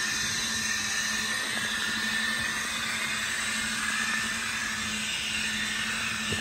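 Two Kato N scale GE AC4400CW model locomotives running coupled together on track: a steady motor whir and wheel-on-rail running noise with a constant low hum underneath.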